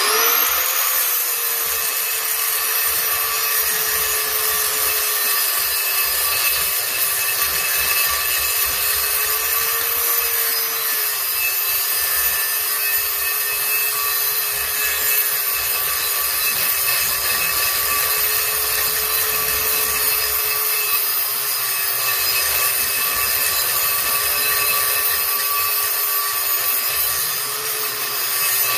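Angle grinder spinning up, then grinding steadily into a rusty steel yard-tractor rim as the rim turns, cutting a groove around the rim just beside its centre weld. Its whine wavers slightly as the load changes.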